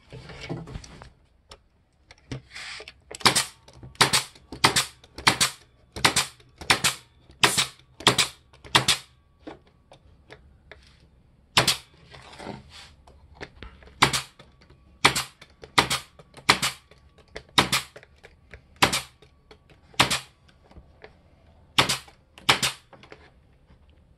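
Pneumatic 18-gauge stapler driving 1.5-inch staples into wooden hive frames, about two dozen sharp shots. They come mostly about two a second, in two runs with a pause of a few seconds between.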